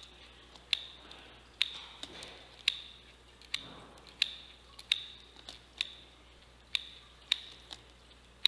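Hot glue gun trigger squeezed over and over: a sharp click roughly once a second, at uneven intervals.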